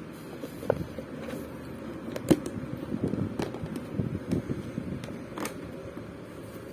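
Small plastic Beyblade parts and a box being handled and rummaged through: scattered sharp clicks, the loudest about two seconds in, over light shuffling.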